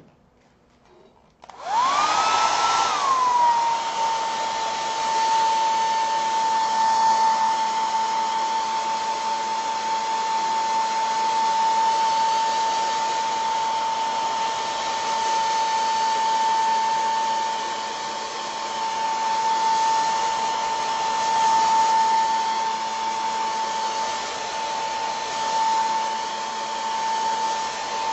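Handheld hair dryer switched on about a second and a half in: its motor spins up with a whine that rises briefly, then drops and settles into a steady whine over the rush of blowing air. It is blowing on a fresh coat of crackle medium to speed its drying.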